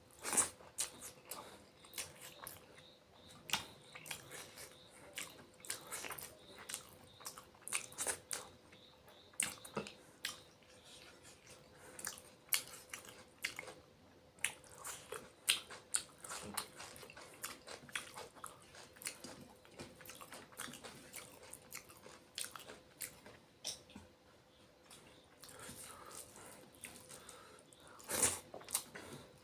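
Close-miked chewing and biting of a person eating fish curry and rice: irregular wet smacks and small crunches, with a faint steady hum underneath.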